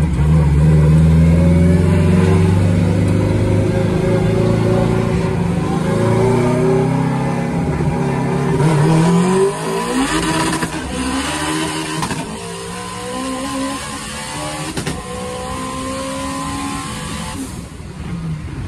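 Turbocharged Honda K20 inline-four on E85 accelerating hard, heard from inside the cabin, its pitch climbing repeatedly with gear changes. About halfway through the engine note falls and a steady rushing hiss runs over it until it stops suddenly near the end.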